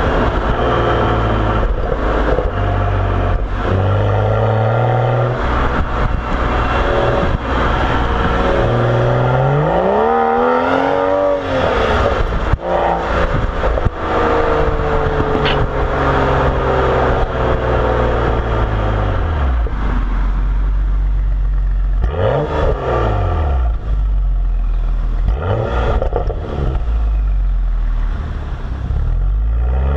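BMW 335xi's turbocharged inline-six running through a Corsa axle-back exhaust while driving. The revs climb and drop several times through accelerations and gear changes, with one sharp rise and fall about ten seconds in.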